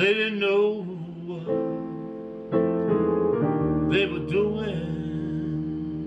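A man singing a slow song over sustained piano chords. His voice comes in for two short phrases with vibrato, one at the start and one about four seconds in, while new chords are struck in between.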